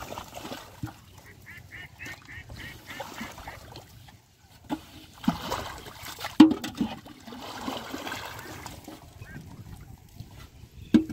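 Muddy water splashing and sloshing as a large metal basin is pushed and lifted through a shallow pond, with a few heavy splashes about five to six and a half seconds in, the last of them the loudest.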